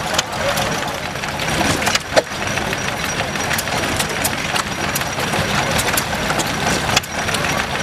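Small vintage stationary engines running at idle with a steady mechanical beat and occasional sharp clicks: first a 1908 Stover 2 hp engine, then, after about two seconds, a Pilter engine.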